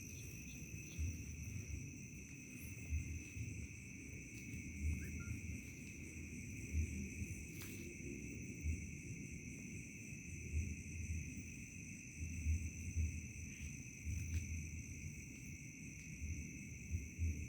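Crickets trilling steadily in a night chorus at two high pitches, under irregular low rumbles that come and go every second or two.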